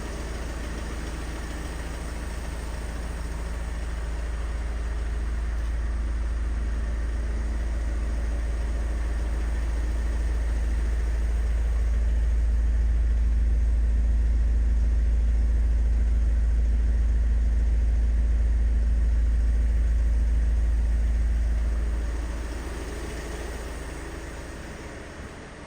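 VW T6 Transporter 4Motion van's engine running with a deep, steady rumble. It grows louder over several seconds, holds, then fades away a few seconds before the end.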